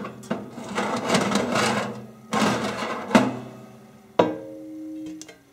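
Wire-mesh air fryer basket slid into the oven's metal rack rails, scraping metal on metal for a couple of seconds, then two knocks; the second knock leaves a short ringing tone.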